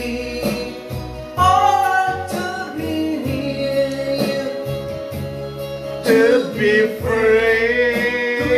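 A song playing: a singing voice with wavering held notes over a steady beat.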